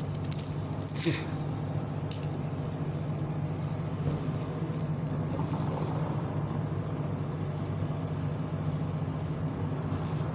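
Steady low mechanical hum, with a brief rustle about a second in.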